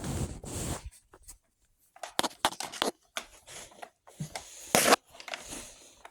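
Irregular rustling, scraping and light knocks as a tangled vacuum cleaner power cord is handled and worked loose, with a louder scrape near the end.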